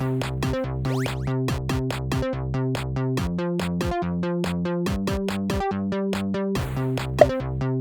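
Background electronic music: a steady drum-machine beat over held synth bass and chords.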